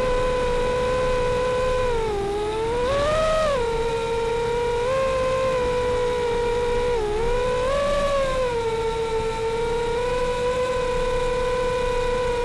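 Xing brushless motors and propellers of a Martian 220 FPV quadcopter whining steadily in flight. The pitch dips and then swoops back up with throttle changes twice, a couple of seconds in and again about halfway through.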